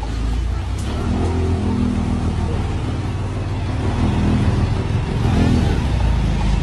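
Truck's diesel engine running and revving as the truck creeps forward, getting somewhat louder about four to five seconds in.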